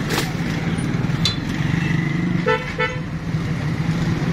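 Street traffic running steadily, with a vehicle horn giving two short toots in quick succession about two and a half seconds in.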